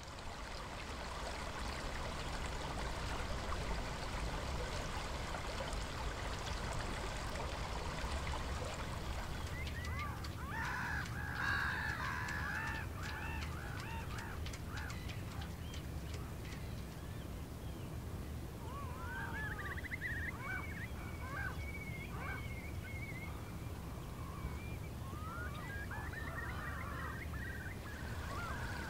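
Water lapping over a steady low rumble. From about ten seconds in, a group of waterbirds calls repeatedly, with further spells of calling about twenty and twenty-six seconds in.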